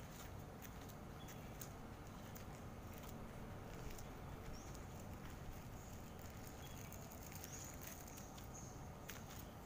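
Stray cats eating food set on the ground: faint, scattered soft clicks of chewing over a steady low background rumble.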